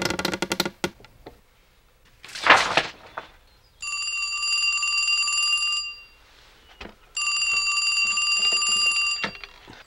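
Telephone ringing: two rings of about two seconds each, near the middle and near the end. Before them, about two and a half seconds in, comes a single short, loud rush of noise.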